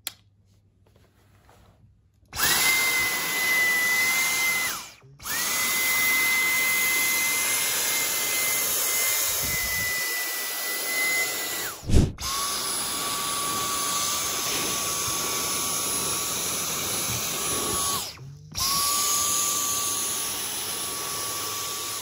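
Dyson V10 Absolute cordless stick vacuum running on its third, highest power setting with the crevice tool: a steady high whine over rushing air. The motor starts about two seconds in, cuts out briefly and starts again three times, and after a sharp click about halfway through its whine sits lower in pitch.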